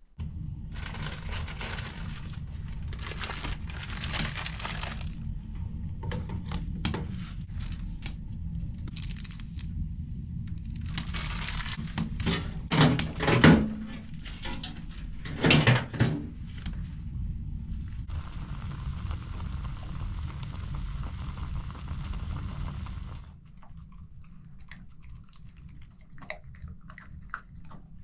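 Crackling, crinkling and snapping of kindling as a fire is lit in a small wood stove, with two loud knocks about halfway through, over a steady low rumble that drops away near the end.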